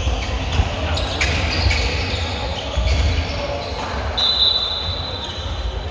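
Handball bouncing on a wooden sports-hall floor, with players' footsteps and voices echoing in the hall. A high steady tone sounds for about a second and a half from about four seconds in.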